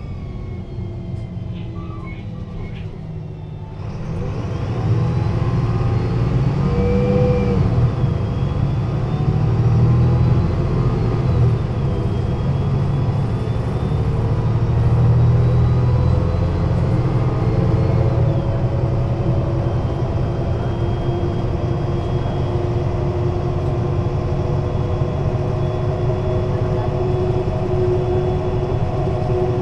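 MAN NL 223 city bus with a Voith automatic gearbox pulling away about four seconds in: the diesel rumble rises sharply and a gearbox whine climbs and drops as it accelerates through the gears. By the end it is running steadily at speed, with a steady engine and gearbox hum.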